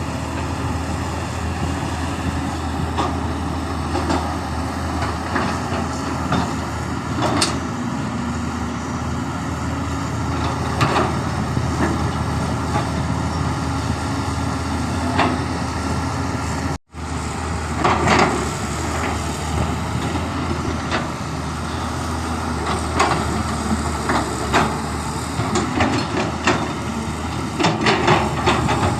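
Heavy diesel excavator engine running steadily, with scattered metallic clanks and knocks, more frequent toward the end. The sound drops out for an instant just past halfway.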